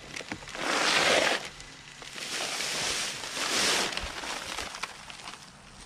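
Paper sack of dry Quikrete concrete mix being emptied into a plastic mixing tub: rustling paper and the hiss of dry mix pouring out, in two loud noisy stretches.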